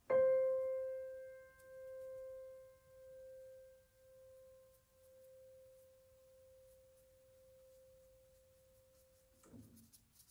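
Background music: one soft keyboard note struck at the start, slowly dying away with a gentle pulsing in its decay. A brief soft sound comes near the end.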